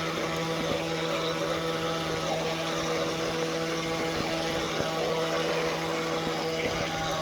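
Small 9.6-volt electric motor of an RC toy boat running steadily, a constant hum with several steady overtones.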